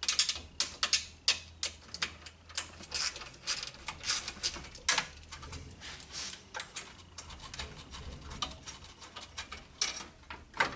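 Hand ratchet on an extension clicking in quick, uneven runs while loosening a 10 mm bolt.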